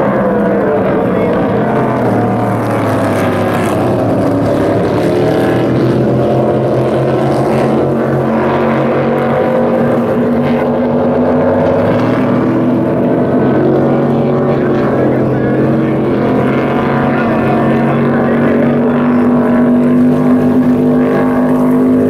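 Unblown (naturally aspirated) flatbottom inboard race boats running flat out, their engines making a loud, steady drone. Several engine notes overlap and drift slightly in pitch, one rising a little near the end.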